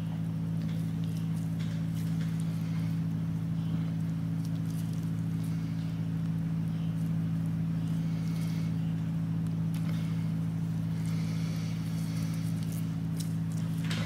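Steady low hum made of several fixed tones, with faint scattered clicks and brief rustling over it.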